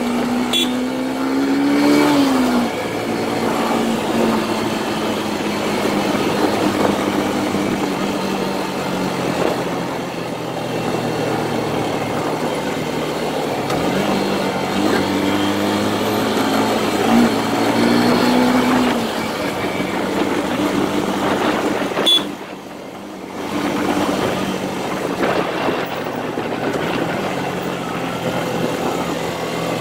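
Motorcycle engine running under a rider, with wind noise over the microphone. The engine pitch rises as it accelerates a couple of seconds in, and again twice about halfway through. The sound briefly drops away for about a second roughly three-quarters of the way through.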